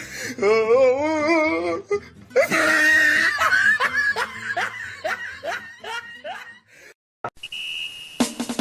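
Laughter: a wavering voice, then a string of short falling laughs about two a second. Near the end, after a brief gap, a short high beep sounds and music with a fast drum beat begins.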